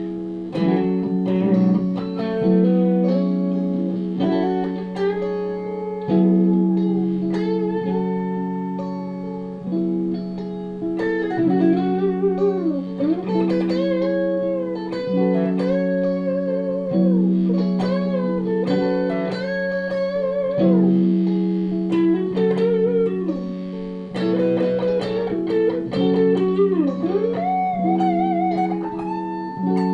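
Electric guitar played through a Boss DD-20 delay pedal and a BB preamp: a bluesy lead with string bends and vibrato over held low notes that change every couple of seconds.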